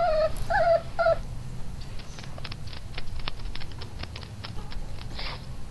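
Small dog whining: one falling whine at the start and two short ones about half a second and a second in, followed by a run of light, quick clicks.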